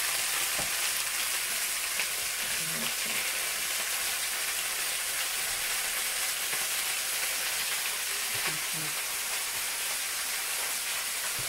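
Pork leg pieces sizzling steadily as they fry in hot oil in a stainless steel pan, with a few faint knocks.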